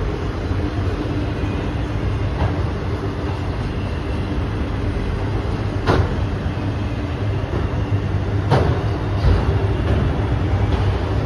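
Freight train of autorack cars rolling past, a steady low rumble of steel wheels on rail. A few sharp clanks stand out, the loudest about six and eight and a half seconds in.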